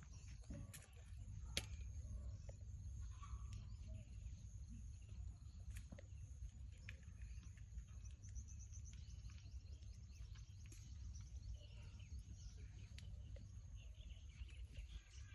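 Faint background ambience: a steady low rumble with a few light clicks, a thin high steady tone, and scattered faint chirps, one quick run of them about eight seconds in.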